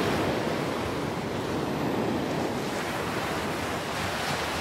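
Ocean surf washing against the rocky shore, a steady rush of water that swells and eases gently.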